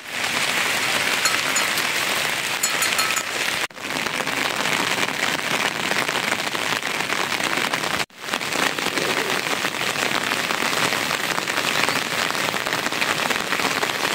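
Steady rain falling, an even hiss of dense drops. The sound cuts out for an instant twice.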